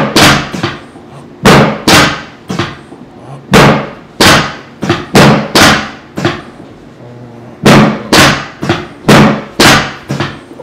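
A run of about twenty loud, sharp slaps or thumps in uneven clusters of two to four, each ringing out briefly.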